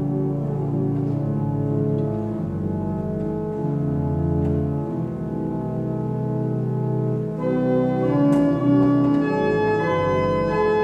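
Church pipe organ playing sustained chords, part of an improvisation on an old Advent chant. About seven seconds in, brighter high notes join above the chords.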